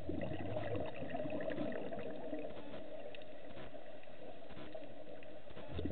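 Underwater sound through a camera housing: a steady muffled hum with scuba regulator exhaust bubbles gurgling, loudest for about a second at the start and again near the end.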